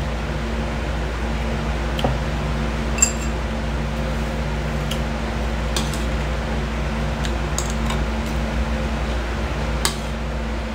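Steady low room hum of a running appliance, with scattered light clinks of cutlery against ceramic dishes, the sharpest about three seconds in.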